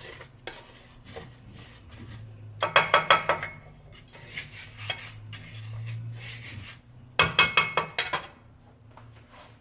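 A utensil stirring rice that is frying in a little oil, scraping and clanking against the pot. The clanking comes in two bursts about four seconds apart, each with a metallic ring.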